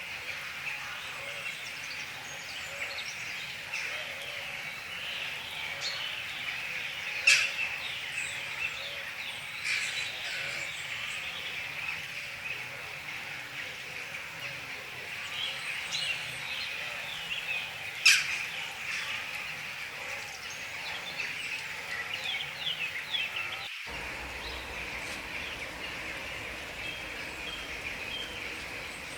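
A chorus of many small songbirds chirping and trilling, steady and dense. Two sharp, loud notes stand out above the chorus, one about a quarter of the way in and one past the middle.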